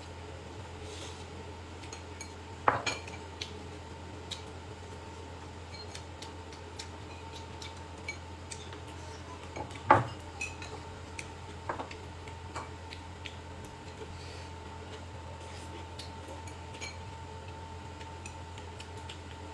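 Dishes and eating utensils clinking and knocking during a meal, with two sharper knocks, one a few seconds in and one about halfway, over a steady low hum.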